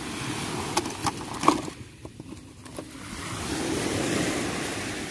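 Ocean surf washing on a beach, with wind on the microphone; the wash swells and fades about four seconds in. A few sharp clicks about a second in.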